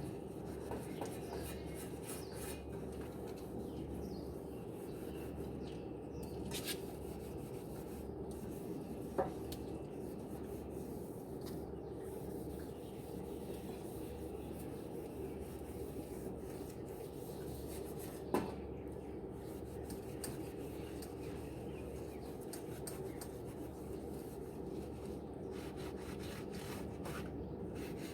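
Barbecue grill parts being scrubbed by hand, a steady rubbing and scouring, with a sharp clink about 9 seconds in and again about 18 seconds in.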